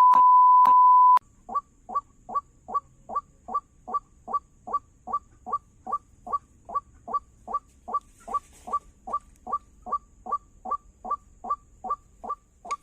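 A steady, loud beep lasting about a second, then white-breasted waterhen calls: short falling notes repeated evenly, about three a second.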